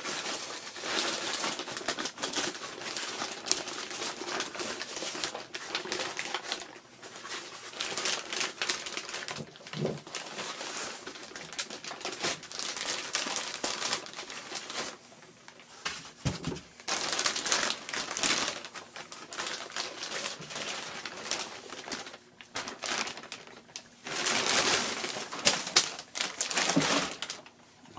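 Packaging crinkling and rustling in bursts with short pauses, with light clicks and knocks as a DJ controller is unwrapped and handled.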